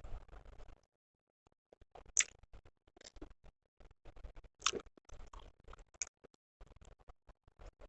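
Close-miked eating sounds: a person chewing a curry meal, with irregular wet mouth clicks and crackles. Two sharper, louder clicks come about two seconds in and just before five seconds.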